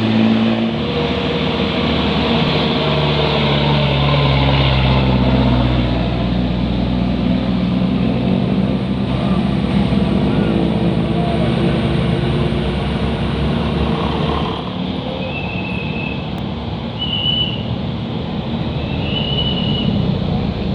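Heavy road vehicle engines and tyre noise passing close by, the engine pitch shifting in the first half. After about fifteen seconds the traffic noise eases and a few short high beeps sound, spaced a second or two apart.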